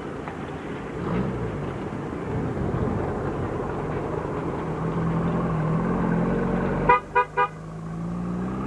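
Racing car engine running and revving, its pitch rising and falling, with three short horn toots close together about seven seconds in.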